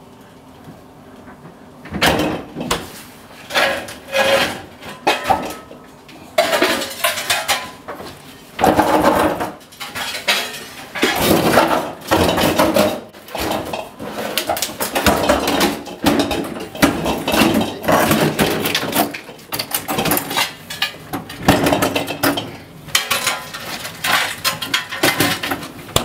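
Refrigerator being moved on a hand truck: irregular clattering, rattling and knocking in bursts, starting about two seconds in, as the fridge and dolly bump along.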